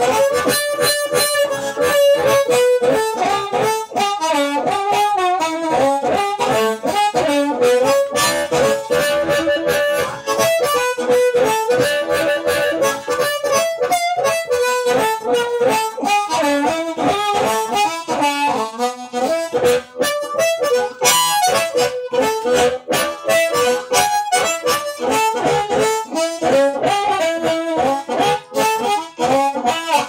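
Harmonica played through a silicon Fuzz Face-style fuzz pedal with a pre-gain control into a Quilter guitar amp: a heavily saturated, compressed, lo-fi distorted tone. It plays a continuous melodic line of many short chopped notes and a few held ones.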